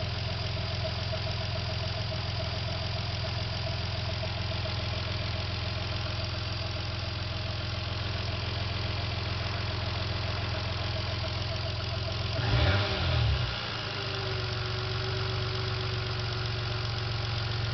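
Toyota 2JZ-GTE twin-turbo straight-six idling steadily, with a wavering, pulsing tone over the idle; this is the engine that has the 'funny noise'. About twelve seconds in the throttle is blipped briefly and the engine drops back to idle.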